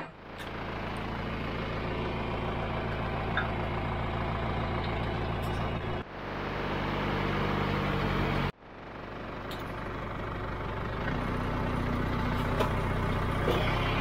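Farm tractor engine running steadily as the tractor drives, a constant low hum. The sound changes abruptly twice, about six and eight and a half seconds in.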